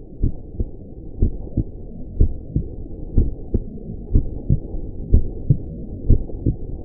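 Heartbeat sound effect: a muffled lub-dub double thump about once a second, over a low steady rumble.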